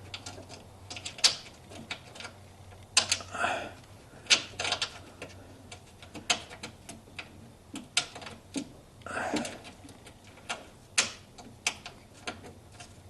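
Ratchet wrench clicking in short irregular runs, with taps and clinks of metal, as a 9/16 nut is run on and tightened.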